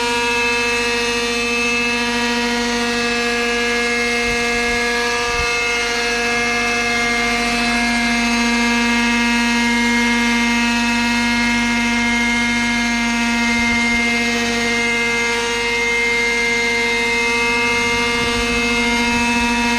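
Hirobo Falcon 555 model helicopter hovering, its OS Max 45 FSR two-stroke glow engine running steadily on methanol fuel with no nitro. Its buzzing note wavers slightly in pitch as the helicopter holds and turns low over the ground.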